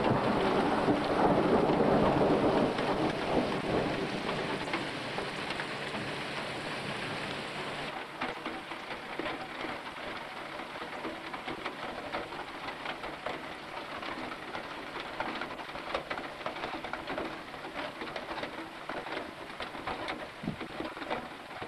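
Heavy downpour: rain pouring onto paving, puddles and foliage. A deep rumble under it at the start dies away over about four seconds, leaving a steadier, thinner patter with many sharp drops ticking.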